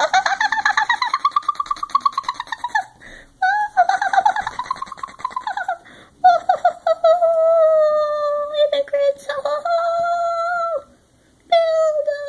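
A high-pitched voice making a long, rapidly pulsing nonsense noise in four held stretches: the first two swoop up and then down in pitch, the later ones hold one pitch.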